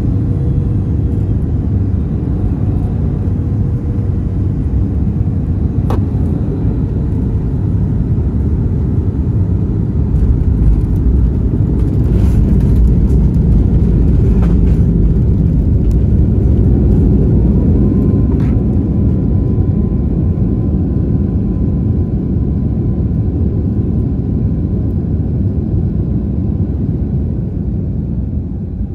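Steady low rumble of a moving vehicle, with a faint steady whine that shifts higher about two-thirds of the way through.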